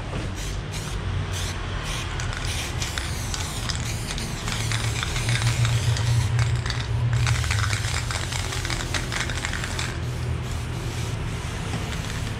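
Aerosol spray-paint can hissing as paint is sprayed onto a wall, in a run of short and longer bursts as the nozzle is pressed and released, over a steady low rumble.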